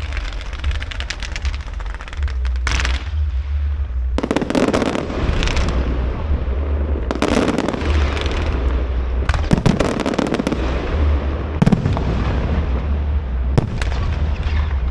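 Fireworks going off: dense runs of sharp crackling pops, with a heavier burst every two to three seconds, over a constant low rumble.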